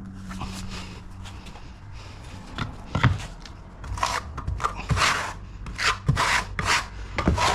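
Herringbone floor boards being knocked and slid into place by hand: a few sharp knocks about three seconds in, then a run of short scraping rubs of board on board.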